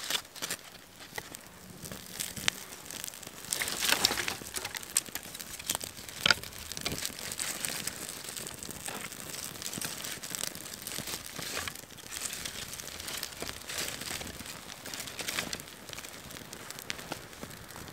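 Small kindling fire crackling as it catches on papery bark, with the crinkle and rustle of dry bark and twigs being handled and laid on. There are a few sharper snaps about four and six seconds in.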